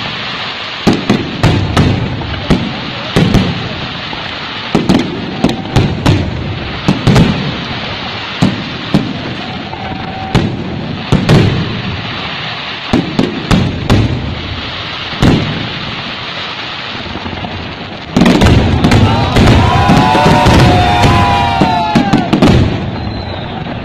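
Aerial fireworks shells bursting in a rapid, irregular string of sharp bangs over a constant crackle. About 18 seconds in, it turns into a louder, denser barrage.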